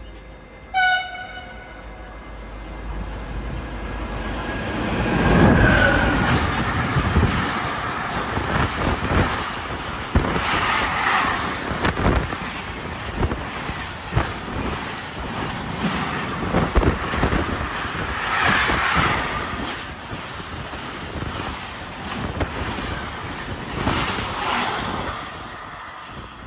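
Siemens E189 electric locomotive sounds a short horn toot about a second in, then comes up and runs past hauling a freight train. As the wagons go by, the wheels click over the rail joints in repeated bursts.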